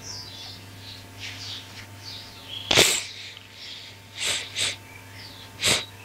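Paper and plastic packaging rustling as the manual and warranty card are handled and moved aside, with four short, louder rustles: the loudest about three seconds in, then a quick pair and one more near the end. A faint steady low hum sits underneath.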